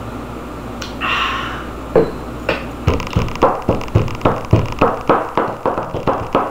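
Glass bottle pounding steak on a wooden cutting board to tenderize it: a couple of single knocks, then from about three seconds in a fast run of hard knocks, about three or four a second, the bottle hitting through the meat to the board.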